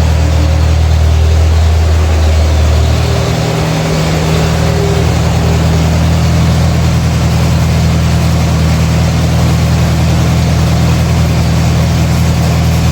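McCormick W6 tractor's four-cylinder engine running steadily, its note shifting about three seconds in.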